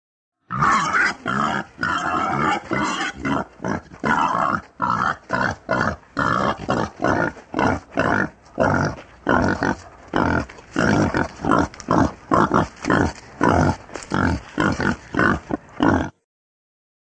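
Wild boar grunting in a quick, unbroken series of short grunts, about two or three a second; it starts abruptly and cuts off suddenly near the end.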